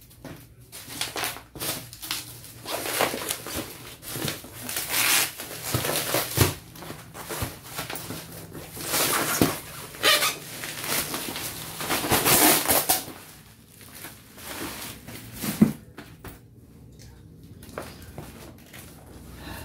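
Bubble wrap and plastic packaging crinkling and rustling as it is pulled off a cardboard box, on and off and loudest a little past halfway, then dying down to quieter handling of the box with a single sharp click.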